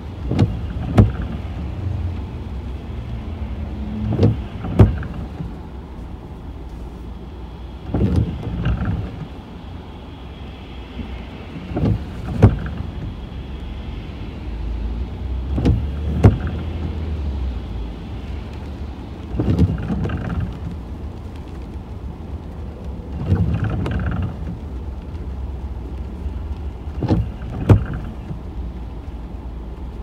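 Car windscreen wipers sweeping at a slow intermittent rate, about once every four seconds, each pass a short swish with sharp clicks. Under them is the steady low hum of the car's engine, heard from inside the cabin.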